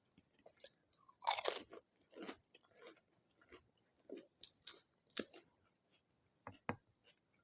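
Crisp pani puri shells crunching as they are bitten and chewed, in a series of separate sharp crunches. The loudest comes a little over a second in.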